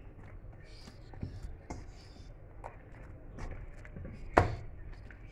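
Dough being kneaded by hand in a stainless steel bowl, oil being worked into it: irregular dull presses and knocks of the dough and knuckles against the metal, with one loud thud about four seconds in.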